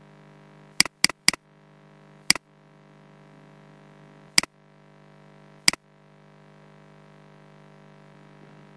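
Computer mouse clicking: three quick clicks about a second in, then three single clicks a second or two apart. A steady low electrical hum runs underneath.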